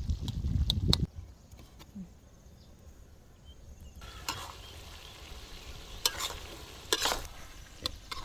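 Pork ribs frying and sizzling in a sticky honey-soy glaze in a metal wok at the caramelising stage, with a metal spatula scraping and stirring against the pan several times in the second half. A low rumble fills the first second.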